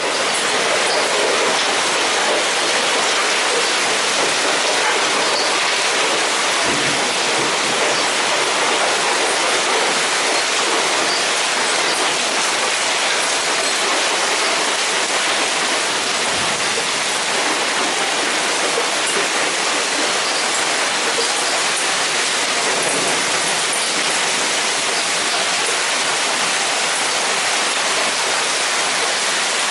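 Heavy downpour of very large raindrops pelting down in a dense, steady rush. Two faint, dull low thumps come about a quarter and about halfway through.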